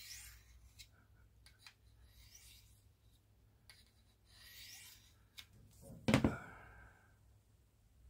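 Steel blade of a Case Trapper pocketknife drawn along the honing rod of a Work Sharp Field Sharpener: a few faint scraping strokes, with a louder knock and scrape about six seconds in.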